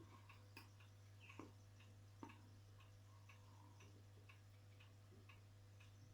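Near silence: a steady low hum with faint, irregular light ticks and clicks, a few every second.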